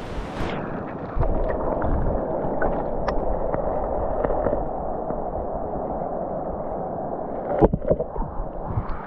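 Muffled rushing, gurgling water of a mountain stream, with scattered small clicks and a few sharper knocks near the end.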